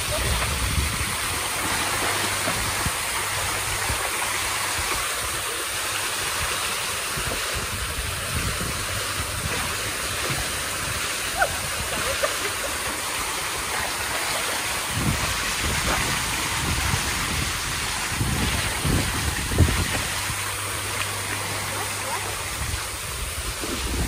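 Artificial waterfall pouring into a shallow pool: a steady rush of falling water splashing down, with a few low thumps in the second half.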